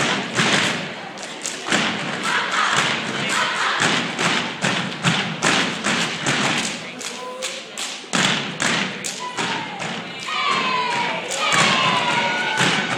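Step team stepping: rapid rhythmic stomps and hand claps, with voices calling out near the end.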